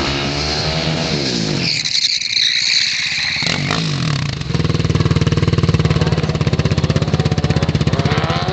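Sport quad bike's engine revving up and down through a wheelie, with a higher whine for a couple of seconds. From about halfway through, the engine idles close by with a steady rapid putter.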